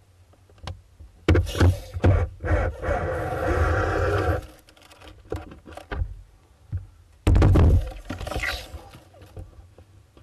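Knocks and scrapes in a wooden hoopoe nest box, with a noisy stretch of about a second and a half three seconds in and a loud thump about seven seconds in.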